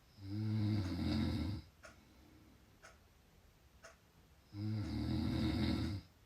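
Loud snoring: two long, low-pitched snores of about a second and a half each, the second starting about four and a half seconds in.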